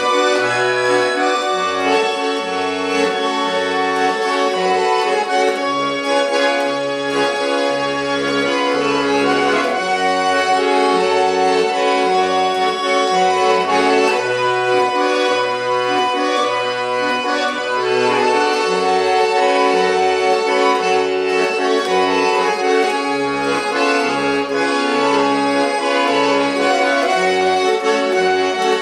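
Accordion playing an instrumental tune: a sustained melody and chords over short, alternating low bass notes in a steady rhythm.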